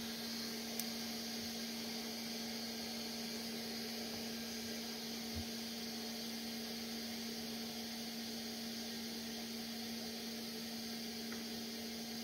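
Steady electrical hum with a hiss over it, with a faint tick near the start and a soft knock about five seconds in.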